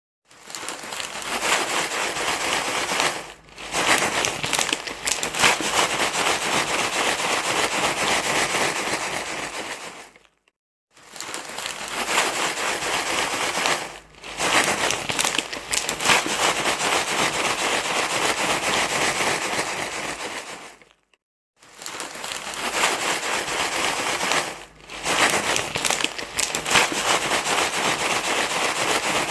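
Steady crinkling rustle used to soothe a crying baby. It comes in passages of about ten seconds, each broken by a short silence, and the pattern repeats.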